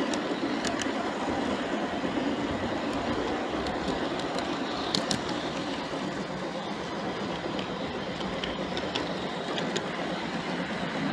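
G-scale model train rolling along garden railroad track: a steady rumble of wheels on the rails with scattered sharp clicks, heard up close from the moving train.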